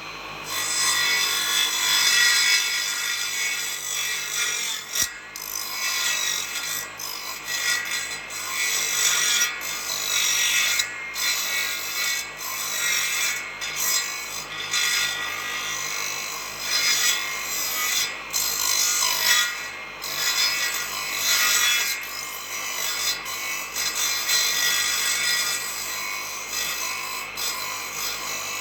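Teak wood being scraped and rubbed by a tool in repeated uneven strokes, with brief breaks between them.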